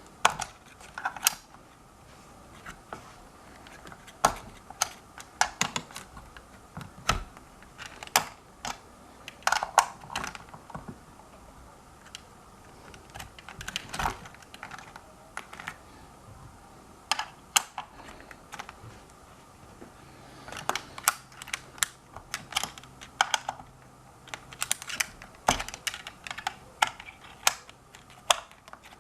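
Irregular sharp clicks and light metallic knocks of a hand tool working the bolts that clamp a hoverboard's wheel-motor axle to the frame as they are tightened. They come in scattered clusters with short pauses between.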